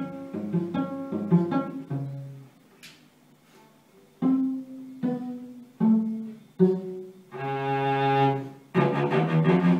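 Solo cello played with the bow: a run of quick notes, then a pause of about a second and a half, then a few separate notes with short gaps, one long held note, and quick notes resuming near the end.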